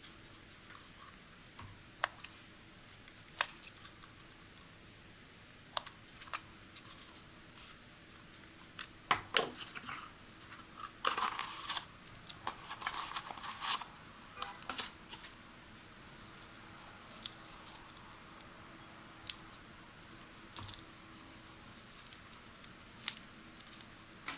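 Close-up unboxing handling sounds from the packaging and device: scattered sharp clicks and taps, with a few seconds of crinkly rustling about midway through.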